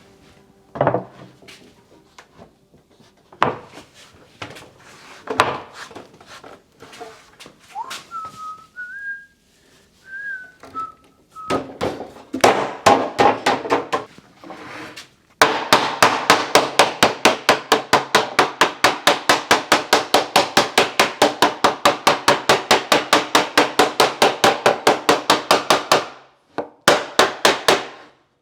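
Hand woodworking at the bench: scattered knocks of tools on wood, with a few seconds of a man whistling about a third of the way in. From about halfway there are some ten seconds of fast, even hand-saw strokes, about four a second, which stop abruptly, and then a few more strokes.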